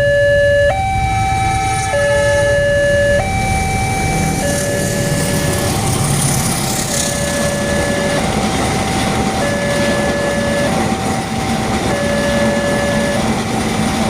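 Railway level-crossing warning siren of the common Indonesian Alkmaar type, sounding a two-tone alarm: a higher and a lower tone take turns about every second and a quarter. A steady low rumble runs underneath.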